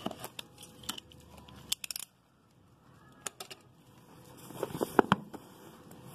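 A blade cutting the seal on a cardboard phone box, with small clicks and scrapes, then cardboard scraping and rubbing as the box lid slides off, with two sharp knocks about five seconds in that are the loudest sounds.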